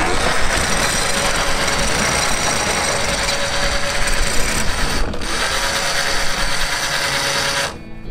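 Lewmar anchor windlass at the bow running steadily as it lets out the anchor chain and rope to drop the anchor. It breaks off briefly about five seconds in, then stops suddenly near the end.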